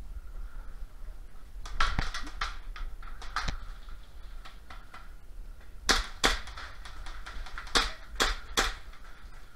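Airsoft guns firing single shots as sharp pops: a run of several about two seconds in, then a pair around six seconds and three more near eight seconds.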